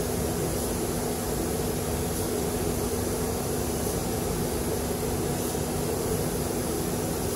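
Paint spray booth's air-handling fans running with a steady hum, together with the hiss of compressed air from a spray gun spraying paint.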